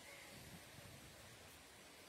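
Near silence: faint hiss with a little low rumble.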